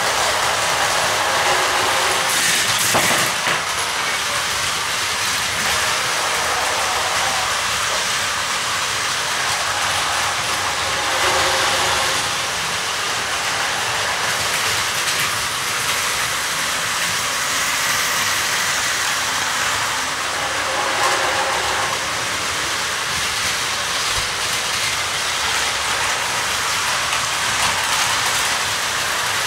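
Plarail battery-powered toy trains running on plastic track: a steady whir and rattle that swells and eases a little as they pass.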